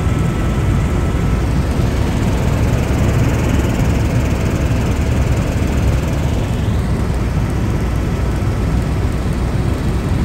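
Helicopter in flight heard from inside the cabin: a loud, steady drone of rotor and engine noise, heaviest in the low end.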